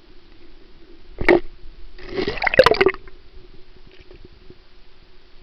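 Water gurgling and bubbling heard through a submerged camera, over a steady low hum; a short burst about a second in and a longer, louder burst with clicks between two and three seconds in.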